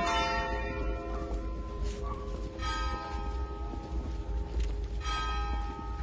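Church bell tolling slowly at a funeral, one stroke about every two and a half seconds, each ringing on and fading before the next: a funeral toll as the coffin is carried into the church.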